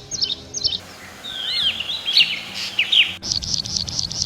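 Songbird singing a varied phrase of high whistled notes that slide up and down in pitch. About three seconds in it changes abruptly to a fast, even run of short high notes, about five a second.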